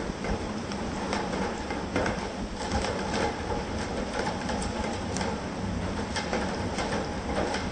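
Steady rain with scattered drop ticks, under a low rumble of thunder that swells near the end.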